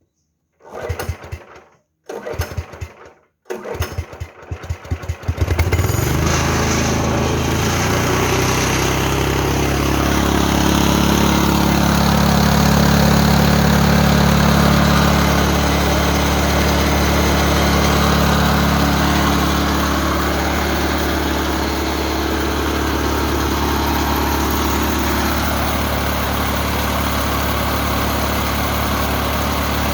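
Sawmill head unit's engine being cranked in three short tries, catching on the third about five seconds in, then running steadily.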